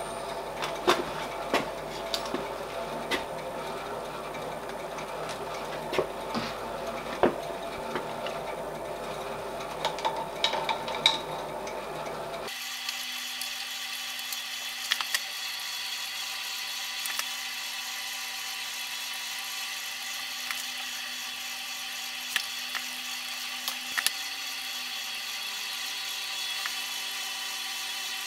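Machine spindle running while a 1/8-inch reamer cuts into brass bearing blocks, with scattered sharp clicks over the first half. About halfway through, the sound jumps to a higher, steadier whine as the footage is played five times faster.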